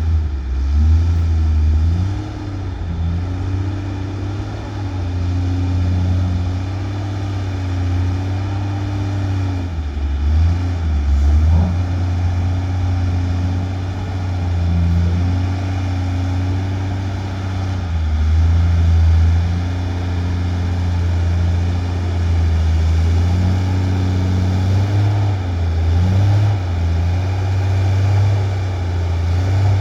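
Dump truck's diesel engine running hard under load. Its revs rise and drop back several times, as with gear changes while labouring up out of the pit.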